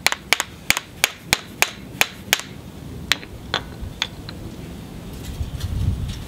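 A bopper tapping repeatedly on the edge of a large cherty mudstone cobble to loosen a big spall: about three sharp taps a second, then a few slower, scattered taps midway. The spall is slow to release, which the knapper puts down to a freeze crack in the rock. A low rumble near the end.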